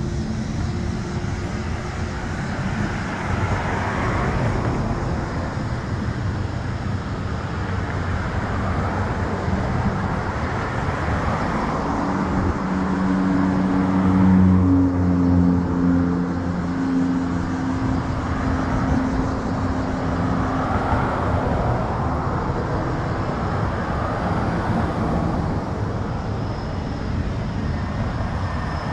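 Street traffic: cars passing one after another on the road alongside, in slow swells. A heavier vehicle's engine hum rises about halfway through and fades a few seconds later.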